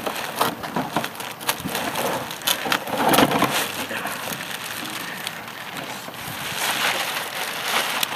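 Plastic garbage bag rustling and crinkling as a person inside it squirms and climbs out, with a louder crackle about three seconds in.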